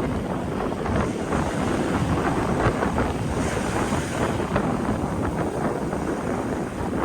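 Strong wind buffeting the microphone in a steady rough roar, with sea waves of the Tsugaru Strait washing beneath it.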